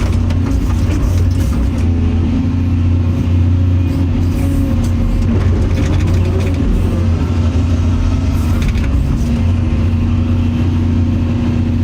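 Excavator's diesel engine running steadily under load while digging, a constant low drone with a higher tone above it that wavers in pitch around the middle.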